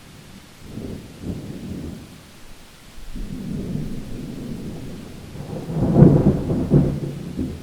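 Thunderstorm: rolling thunder rumbles over steady rain, swelling a second in, again from about three seconds, and loudest around six seconds.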